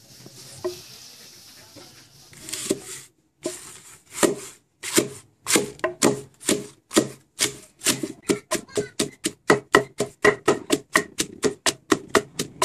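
Wooden pestle pounding fresh papaya leaves in a mortar: repeated dull strikes that begin about two seconds in, slow at first, then quicken to about three strokes a second.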